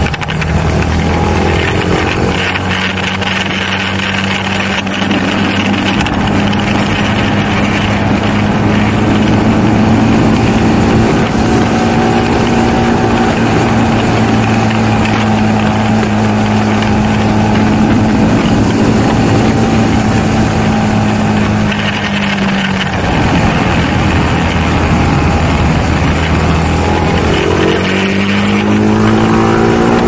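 BMW G310R's single-cylinder engine running under way. Its pitch climbs in the first couple of seconds, holds steady for a long stretch, falls away about two-thirds through, and climbs again near the end as the bike speeds up.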